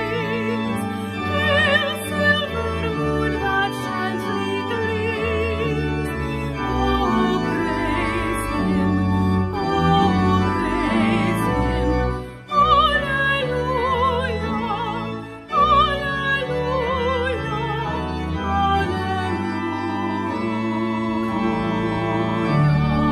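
Music: an organ accompanying a solo voice singing with strong vibrato, with two brief breaks between phrases about halfway through.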